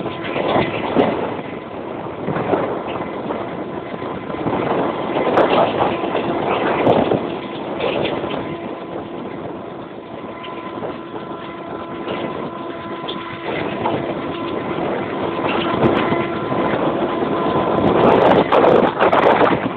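Diesel-hauled passenger train running at speed, heard from an open coach window. Wind rushes over the microphone, the wheels rattle along the rails, and the WDM-3A locomotive's ALCO 16-cylinder diesel works under power ahead. The noise swells and grows louder near the end.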